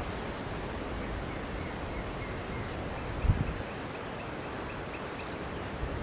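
Steady outdoor wind noise, with a brief low gust buffeting the microphone about three seconds in. Faint, short bird chirps repeat at an even pace, about three a second, through the middle.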